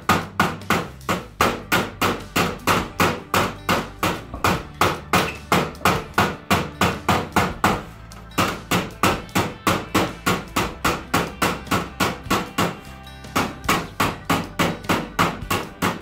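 Rapid hammer blows on the edge of a sheet-metal patch panel clamped to a Jeep Wrangler YJ fender, about three strikes a second, rolling the panel's edge over; the hammering pauses briefly twice.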